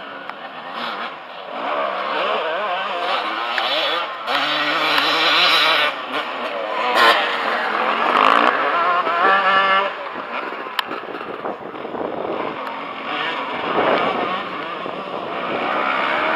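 Motocross dirt bike engines revving up and falling back as they ride the track, the pitch rising and dropping over and over, with more than one bike at times.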